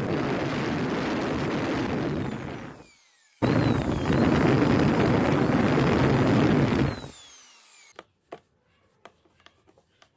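A handheld power tool running in two bursts of a few seconds each, with a short pause between, each ending as the motor winds down; a few light clicks follow near the end.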